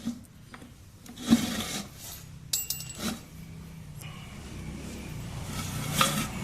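Knocks and clanks of an opened manual gearbox's metal parts being turned over by hand, with one short metallic ring about two and a half seconds in. A low rumble builds underneath from about four seconds.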